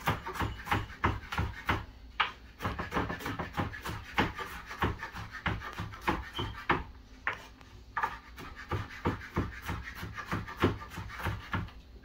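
Chef's knife chopping and mincing garlic cloves on a wooden cutting board: a quick, uneven run of blade knocks on the wood, several a second.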